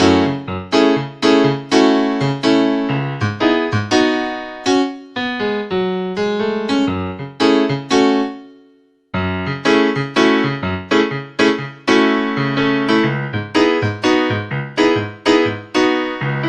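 Casio CTK-4200 arranger keyboard playing a piano-type voice: melody and chords over a bass line. A little past halfway the notes die away into a brief silence, then the playing starts again.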